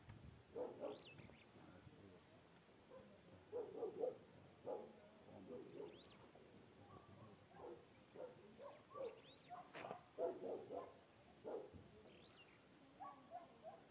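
Faint animal calls in short, irregular bursts, like distant dogs barking, with a few brief high bird chirps.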